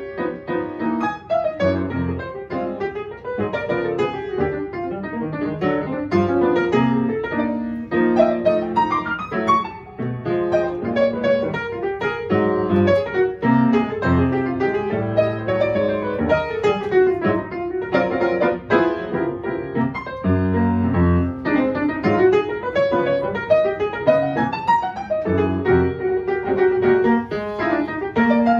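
Grand piano played solo: a melody of many quick notes over low bass notes and chords, without pause.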